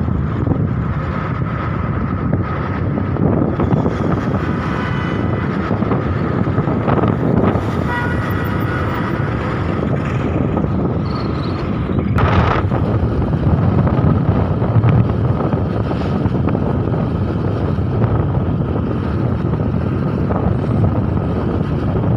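Wind buffeting the microphone over the steady rumble of a moving vehicle on the road, with a thin steady whine, and one short sharp knock about twelve seconds in.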